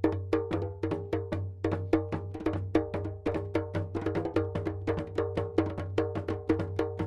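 A group of hand drums playing together, bass, rhythm and solo drums, in a fast, even pattern of about six strikes a second over a steady low drone.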